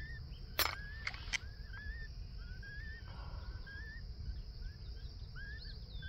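A small bird chirping steadily, short rising chirps about two a second. About a second in come three sharp clicks from the small plastic leg band and banding tool being worked in the hands.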